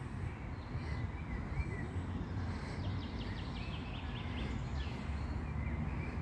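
Songbirds chirping in the trees, with a quick trill of about eight notes about three seconds in, over a steady low rumble.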